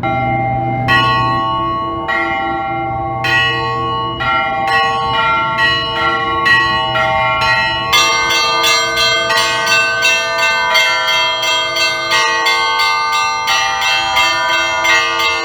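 Russian Orthodox church bells ringing for Easter. A few strokes come about a second apart at first, then quicken, and from about halfway many bells join in a fast, dense peal. A low hum from a large bell fades out at about the same point.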